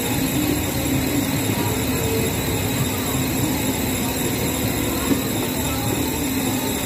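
Steady amusement-park din: a continuous machinery rumble with faint crowd voices, no single event standing out.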